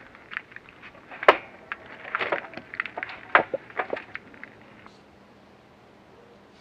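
A log of wood being handled and set onto a portable sawhorse: a string of knocks and scrapes of wood on wood and on the stand, the sharpest about a second in and again a little past three seconds, dying away a little before the end.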